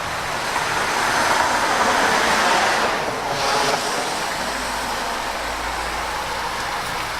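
A road vehicle passing, its tyre and road noise swelling about a second in and easing after about three seconds, then a steady traffic hum.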